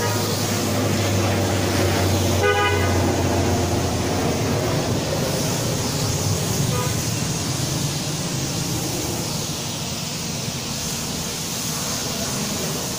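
Pressure-washer wand spraying water onto a foam-covered car, a loud steady hiss of spray. A vehicle horn honks briefly about two and a half seconds in.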